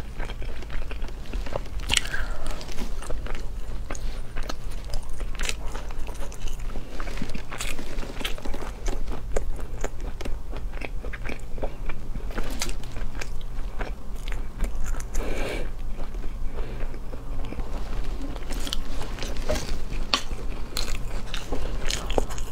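Close-up eating sounds of cooked whelks: chewing and biting, with many short, irregular clicks from the shells and the toothpick picking out the meat.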